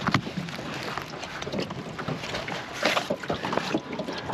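A large mulloway flapping on a brag mat in the boat, giving irregular thumps and slaps amid handling rustle. The sharpest knocks come just after the start and again around three seconds in.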